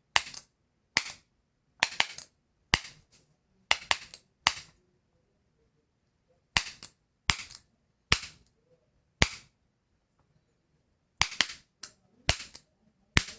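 A bump key in a seven-pin Hafele mortise lock cylinder being struck over and over to bump the pins: sharp metallic taps about once a second, in runs broken by two short pauses.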